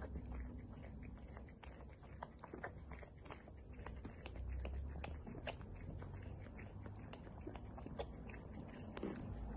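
Small dog licking and lapping whipped cream from a paper cup: quick, irregular wet clicks and smacks, several a second.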